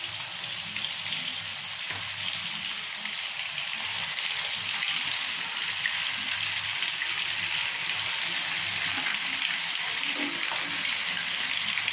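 Raw minced-beef seekh kababs deep-frying in hot oil, a steady dense sizzle and bubble as the raw mince gives off water into the oil. It grows a little louder about four seconds in.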